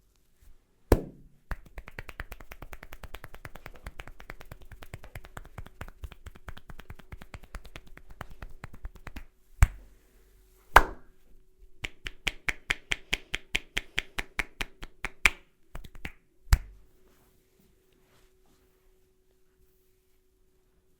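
A barber's hands striking the head in a fast percussive head massage: a sharp slap, a long run of quick light taps, then loud slaps and a run of louder, sharper strikes, ending with one more slap. A faint steady tone hums underneath.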